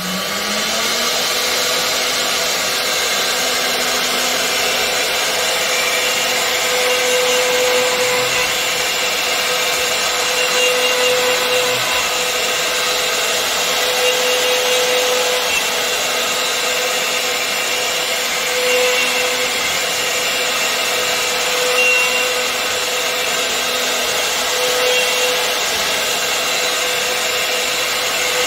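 Cosen L623AX 4-axis CNC woodworking machine's spindles running at speed, milling and drilling a wooden table leg: a steady high whine with cutting noise, and a humming tone that swells every three to four seconds.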